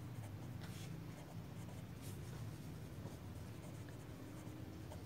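Pen writing on paper: faint scratchy strokes as words are written by hand, over a low steady hum.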